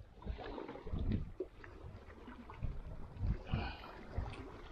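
Water lapping against the side of a small inflatable boat, with irregular low knocks and bumps against the hull.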